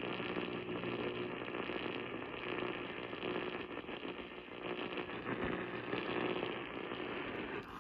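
AM radio receiver hissing and crackling with static as the broadcast signal fades out; the signal is being lost.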